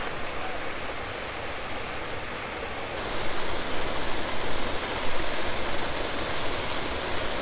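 Waterfall rushing steadily, a little louder from about three seconds in.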